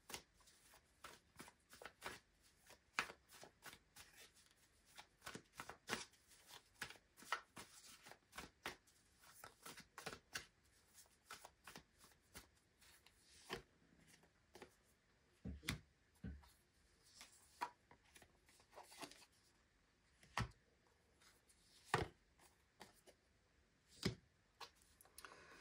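A tarot deck being shuffled by hand: soft, irregular card clicks, with a few sharper ones in the last few seconds.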